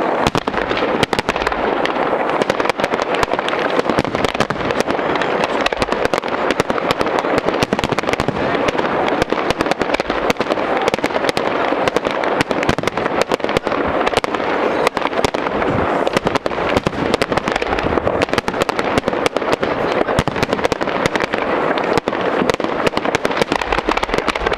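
Fireworks display: aerial shells bursting and crackling in a dense, unbroken barrage of bangs.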